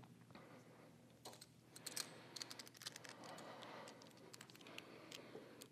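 Faint, irregular clicking of a hand tool on the exhaust header flange nuts at the front cylinder as they are tightened. The clicks come in small clusters over otherwise near-silent shop air.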